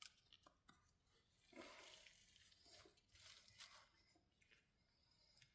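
Faint, scattered rubbing and scuffing of a rag wiping oil and sludge off the oil filter housing's sealing surface, with a few light ticks.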